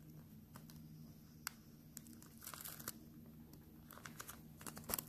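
Faint crinkling of a clear plastic tackle package being handled, with scattered small clicks that come closer together near the end, as a snap swivel is worked. A faint low steady hum lies beneath.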